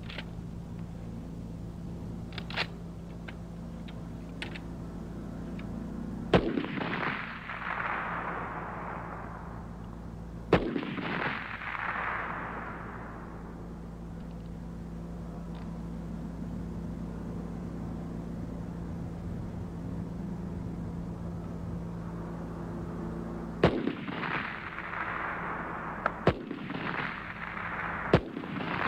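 Military rifles firing single shots on an open range: five loud cracks spaced several seconds apart, two close together near the end, each trailing a long echo. A steady low hum runs underneath.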